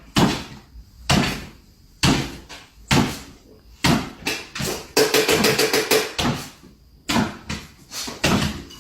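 A series of sharp knocks or bangs, roughly one a second, with a quick rattling run of taps about two-thirds of the way through.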